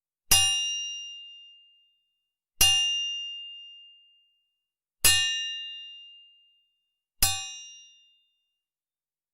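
A bell struck four times, each a single bright ding that rings and fades out over about a second and a half, about two seconds apart.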